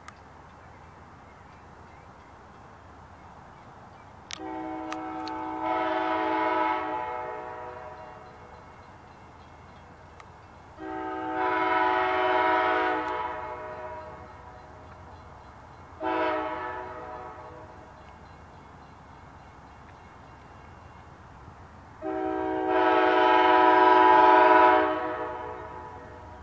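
Train horn sounding a chord in four blasts, long, long, short, long: the standard warning signal for a road crossing. Each long blast is louder than the one before, the last the loudest, as the train approaches.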